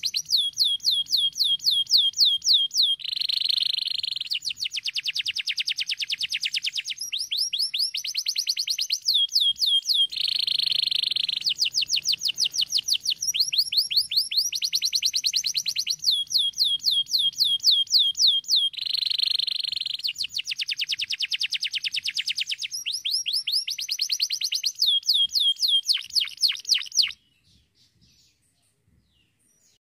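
Domestic canary singing a long song: fast trills of repeated falling notes alternate with buzzy rolls. It stops abruptly near the end.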